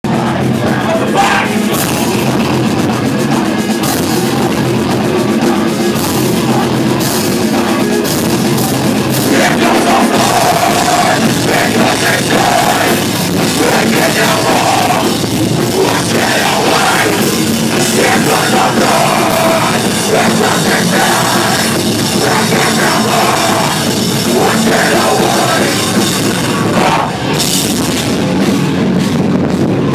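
A rock band playing live and loud, with a drum kit driving it, heard from among the crowd.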